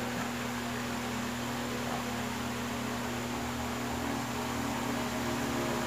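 A steady background hum with a constant hiss, unchanging throughout.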